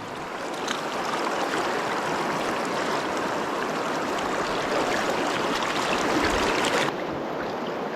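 River current rushing steadily around a wading angler. About seven seconds in, the highest part of the hiss drops away suddenly.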